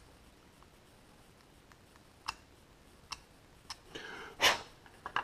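Hobby knife scraping paint off a resin model part: a few sparse, faint clicks and scratches. A short, louder rustle about four and a half seconds in as the part and knife are moved.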